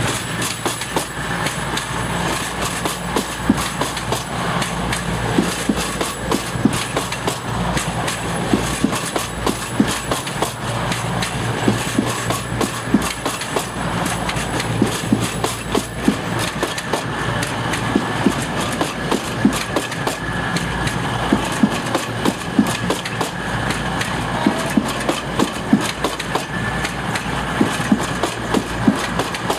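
Two coupled Class 222 Meridian diesel multiple units running past close by along the platform: a steady rumble of underfloor diesel engines and rolling wheels, with a frequent irregular clatter of wheels over rail joints.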